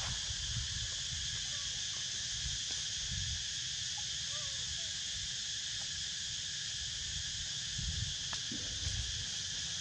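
Steady chorus of insects buzzing on several high, even pitches over a low rumble, with a few faint short chirps about four seconds in.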